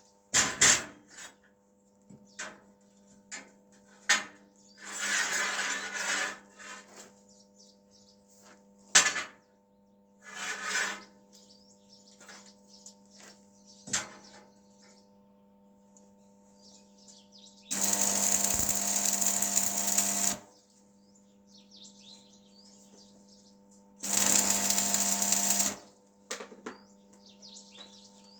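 Metalworking sounds: scattered knocks and clicks of metal parts being handled, with two bursts of a power tool running for about two to three seconds each in the second half, over a faint steady hum.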